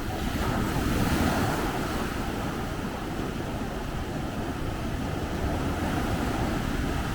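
Sea waves breaking and washing on a beach, a surge of surf swelling up about a second in, with wind rumbling on the microphone.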